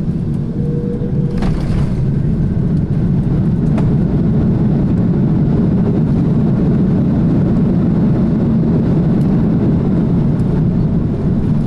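Cabin noise of an Airbus A330-300 on its landing roll: a steady low rumble of the engines and the wheels on the runway, growing louder about three seconds in and easing slightly near the end. Two sharp knocks come in the first four seconds, about two seconds apart.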